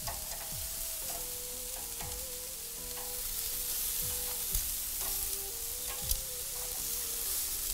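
Chicken kebabs sizzling steadily on a very hot gas grill as they are turned with metal tongs, with a few sharp clicks of the tongs against the skewers and grate.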